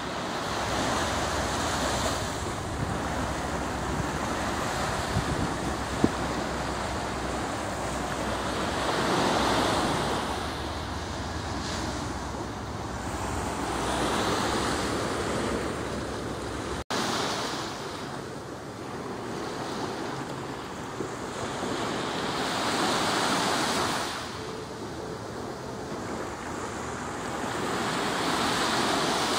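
Sea surf washing onto a beach, swelling and fading every four to five seconds, with wind rumbling on the microphone until a brief dropout about halfway through.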